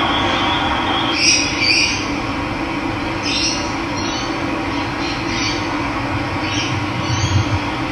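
Running water making a steady rush, with birds giving short high calls about seven times, two close together about a second in and the rest spread through.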